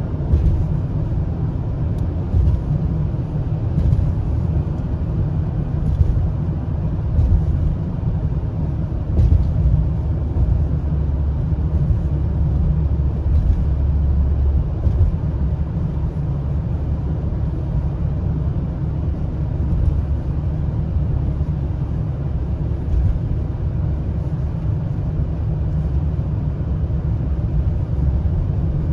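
A car on the move: a steady low rumble of road and engine noise with no change in pace.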